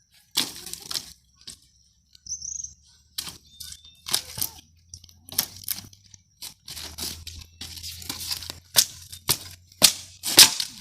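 Dry sticks and brush crackling and snapping in irregular bursts as they are handled and broken. A bird chirps briefly about two and a half seconds in.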